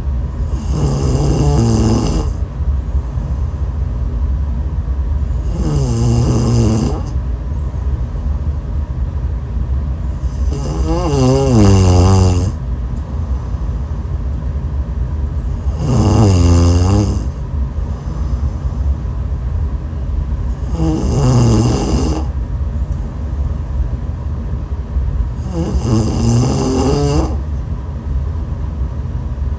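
A woman snoring, six snores about five seconds apart, each lasting one to two seconds with a pitch that dips and rises, over a steady low hum.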